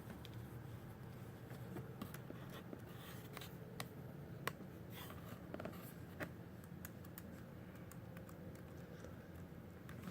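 Faint scattered clicks and light scratching over a low steady hum, with one sharper click about four and a half seconds in.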